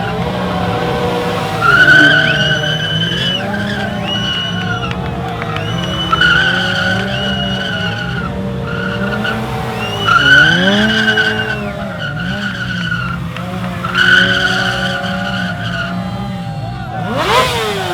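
Motorcycle burnout: the engine runs at high revs while the rear tyre squeals in repeated bursts of a second or so. A short, sharp burst of noise comes near the end.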